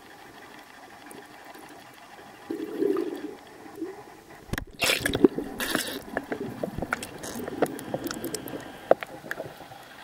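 Water moving around an underwater camera: a muffled rush and gurgle that grows louder and busier about halfway in, with many sharp knocks and splashes.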